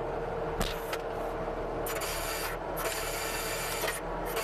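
CASE TR270B skid steer's engine running steadily, with a couple of short knocks early on and a rasping hiss over it through the second half.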